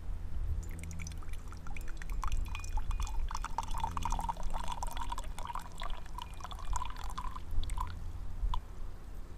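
Brewed shu puer tea being poured from a teapot into the chahai serving pitcher: a steady stream with a ringing tone as the pitcher fills, for about six seconds, then a few last drips. This is the first infusion.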